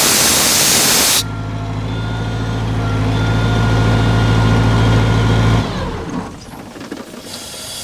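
Compressed air blasting out of a Sullair 185H portable compressor with a loud hiss for about the first second, then the compressor's John Deere 4.5-liter diesel running with a steady note that slowly grows louder. About two-thirds of the way in, the engine note falls away, and a fresh hiss of air starts near the end.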